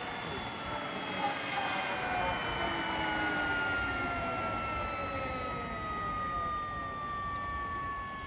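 Aérospatiale Gazelle helicopter's turbine whine, several high tones sliding slowly down in pitch over a rotor and engine rumble, fading near the end.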